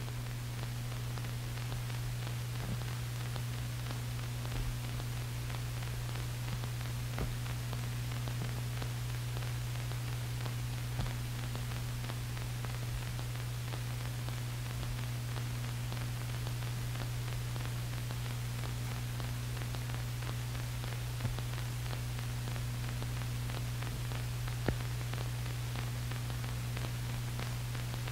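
Steady low hum with even hiss and a few faint clicks, the background noise of an old film soundtrack.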